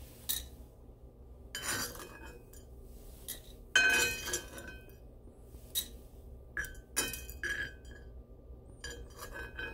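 Metal measuring spoon clinking against a cast-iron skillet while scooping out roasted coffee beans: about ten separate clinks, some with a short metallic ring.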